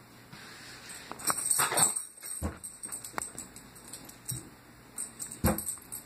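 A few scattered light knocks, with a short jingling rattle about a second in.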